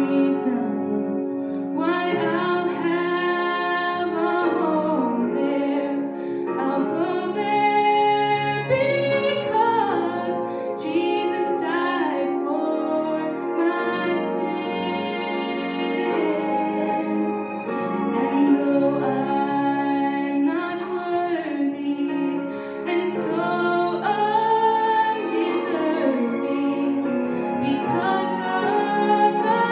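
A woman singing solo into a handheld microphone over instrumental accompaniment, her voice carried through the sound system.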